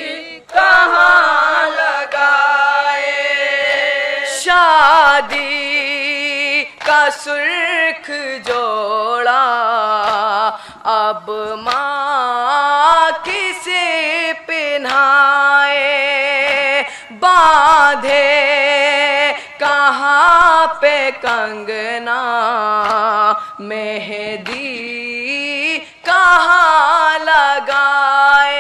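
A nauha, the Shia lament for the martyrs of Karbala, chanted by young male voices into microphones in long wavering sung phrases, broken by short pauses for breath.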